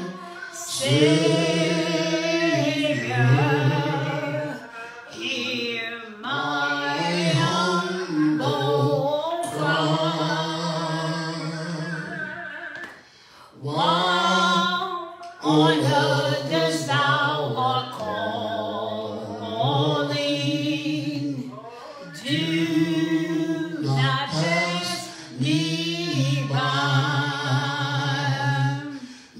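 A man singing a hymn solo and unaccompanied, in long held notes with short breaks between phrases.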